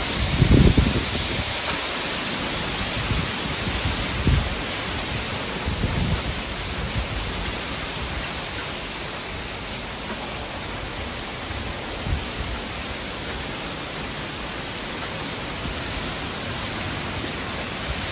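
Heavy rain pouring steadily in a severe thunderstorm. Gusts of wind buffet the microphone in a few brief low rumbles, the strongest about half a second in.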